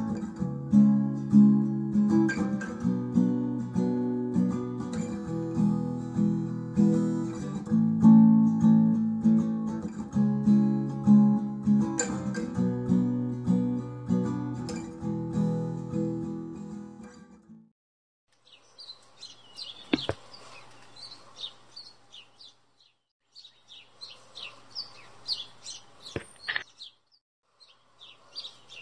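Mellow guitar music that stops a little past halfway. It is followed by small birds chirping in short bursts, broken by brief pauses, with two sharp clicks among them.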